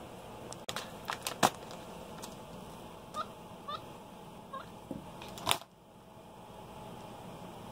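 Capuchin monkey giving a few short, high, rising chirps while it handles a plasma ball, with several sharp taps and clicks; the loudest clicks come about one and a half seconds in and again near the end.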